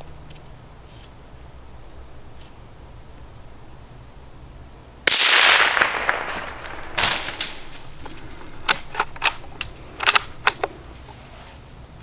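A single suppressed .17 HMR rifle shot about five seconds in: a sudden crack with a noisy tail that fades over about a second. A scatter of sharp snaps and crackles follows over the next few seconds.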